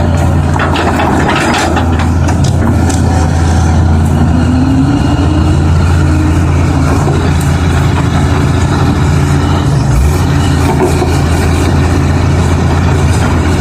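Heavy diesel engine running steadily with a deep hum. There are a few metallic clanks in the first couple of seconds, and a short rising whine about four to five seconds in.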